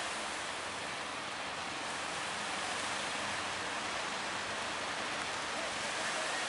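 Steady rushing hiss of waves breaking and choppy sea water.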